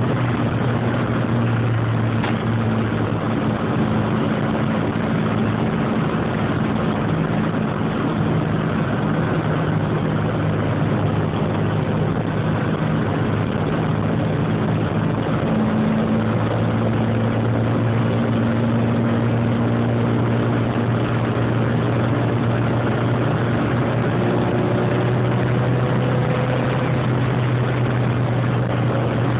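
A Mini's engine droning steadily at road speed, with tyre and wind noise, heard inside the cabin through a phone's microphone. The low engine note eases a few seconds in and comes back strongly about halfway through. The engine is still being run in.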